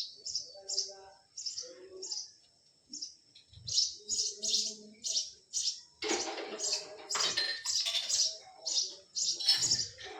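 Bird calling with a rapid series of short, high chirps, about two to three a second. From about six seconds in, a fuller, noisier layer of sound joins beneath the chirps.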